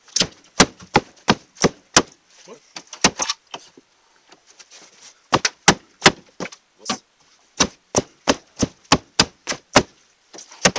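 Hammer blows on the crumpled sheet-metal body of a crash-damaged Pontiac Grand Prix, knocking the bent panels back into shape. The sharp, ringing strikes come in quick runs of about three a second, with short pauses between runs.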